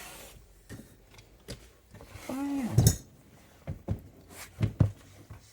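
Scattered light clicks and knocks of small hard parts being handled while a tire is fitted to an RC car's wheel hub, with a brief low pitched sound a little over two seconds in.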